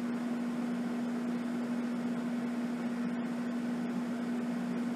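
A steady low electrical or mechanical hum at one pitch under an even hiss, unchanging throughout: the room's background tone.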